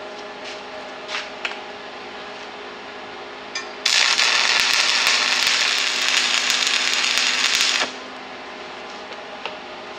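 Stick welding with a 6013 rod on an AC arc welder at 105 amps: a few light taps, then the arc strikes about four seconds in and crackles and hisses steadily for about four seconds before cutting off abruptly. A steady hum runs underneath throughout.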